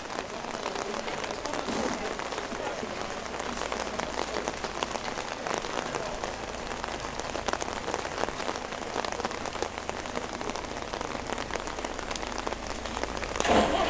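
Heavy rain falling steadily, with dense close drops striking the fabric of an umbrella overhead. The sound swells louder just before the end.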